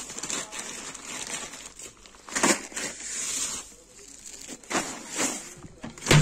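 Plastic packaging rustling and crinkling as packets of supplies are handled and stacked, with a few sharper crackles, one about two and a half seconds in and another near the end.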